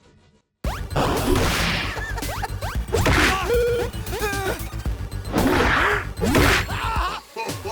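Cartoon action sound effects: a run of whooshes and hard hits with a low pulsing beat beneath, starting suddenly after a short silence.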